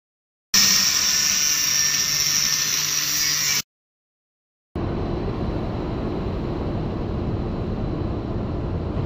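An angle grinder cutting steel pipe: a loud, high-pitched whine and hiss that stops suddenly after about three seconds. After a second of silence, arc welding on a steel pipe joint starts: a steady, loud crackle that runs on.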